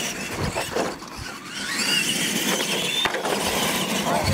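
Radio-controlled monster trucks racing on dirt: their motors and gears whine and rise in pitch as they speed up, over the rushing noise of the big tyres on the dirt.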